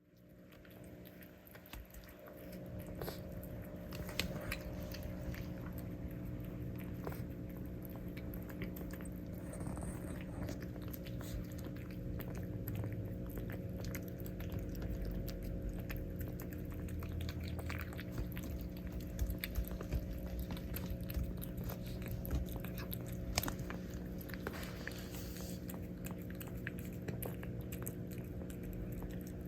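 A cat eating, chewing and biting its food with many small irregular clicks and smacks, over a steady low hum.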